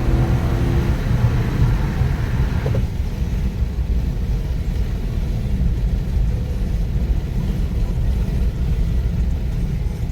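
Dodge Challenger Scat Pack's 6.4-litre HEMI V8 heard from inside the cabin, pulling hard with a deep, steady rumble. About three seconds in, the higher, harder-working part of the engine sound drops away sharply, leaving the low rumble.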